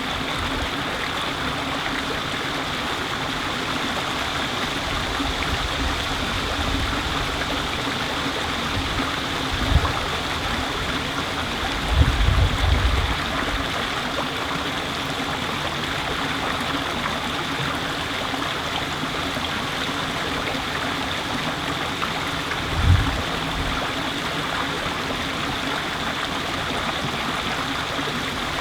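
A stream of water flowing steadily. A few brief low gusts of wind buffet the microphone, about a third of the way in, shortly after, and again near the end.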